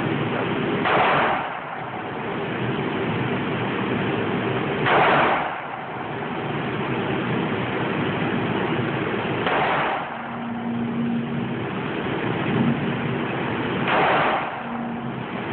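Four single handgun shots, about four seconds apart, each with a short echoing tail in the indoor range, over a steady background roar.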